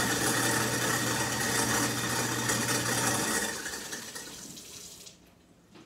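Kitchen sink garbage disposal running with tap water, grinding pieces of orange, with a steady motor hum. It is switched off about three seconds in, and the noise dies away over the next two seconds.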